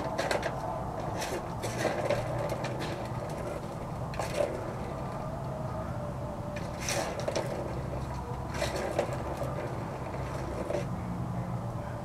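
Plastic ball-in-track cat toy being batted by a kitten: irregular clicks and rattles of the ball knocking in the plastic track, in small clusters, over a low steady background rumble.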